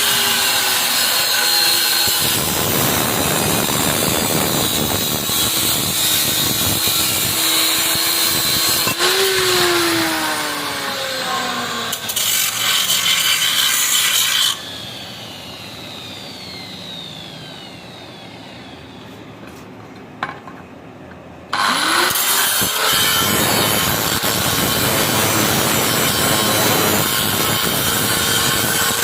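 Power cutter with an abrasive disc cutting through a metal pipe: loud, harsh grinding, with the motor's pitch sagging and recovering as the disc bites. Midway there is a quieter spell of about seven seconds while the disc spins down, then loud cutting starts again.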